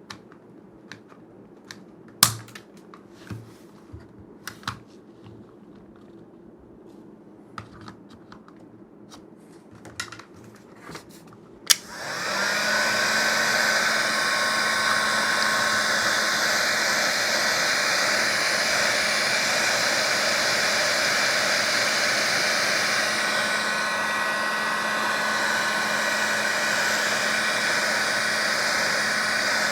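Scattered clicks and taps of plastic being handled, then a sharp click about twelve seconds in as a heat gun switches on; its motor spins up and then runs with a loud, steady blowing.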